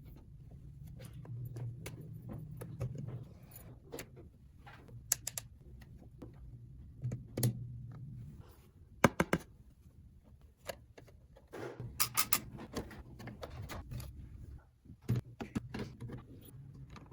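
Hands handling small plastic toy dollhouse pieces: scattered clicks and taps, with quick runs of rattling clicks a few times.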